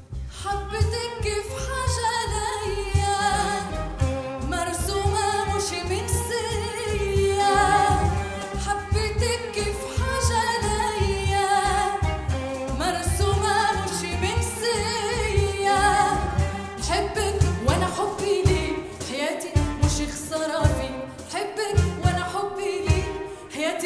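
A woman singing an Arabic song, with a small ensemble including cello accompanying her over a steady low beat.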